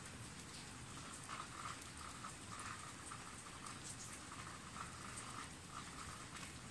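Rain falling steadily, with a faint animal call repeating on and off in short bursts.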